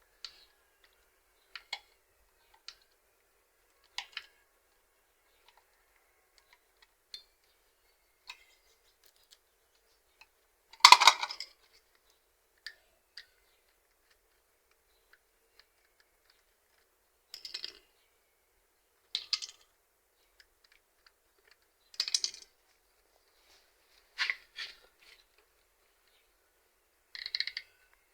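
Scattered small clicks and taps of hard plastic and metal as car key shells and a transponder board are handled and worked apart with small tools, with longer gaps of quiet between them; the loudest knock is about eleven seconds in, and short clusters of clicks follow every two to three seconds near the end.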